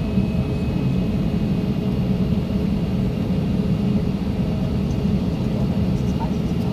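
Cabin noise inside an Airbus A321 taxiing: a steady low rumble of engines at taxi power and rolling gear, with a faint steady whine above it.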